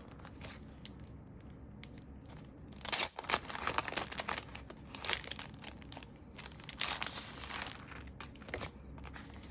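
Packaging being crinkled and torn open by hand, in irregular rustling bursts; the loudest is a sharp crackle about three seconds in, with another burst around seven seconds.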